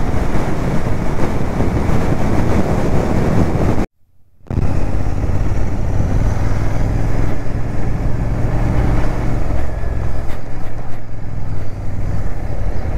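Royal Enfield Interceptor 650's parallel-twin engine running while the motorcycle is ridden, under a steady rush of wind and road noise. The sound drops out for about half a second around four seconds in. After that the engine's steady low note comes through more clearly.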